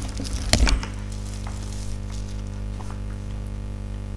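A brief crackle and clatter of paper being handled close to the microphone, loudest about half a second in, over a steady electrical mains hum.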